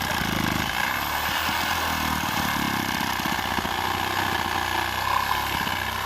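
Handheld power saw running steadily as it cuts a notch into a tree.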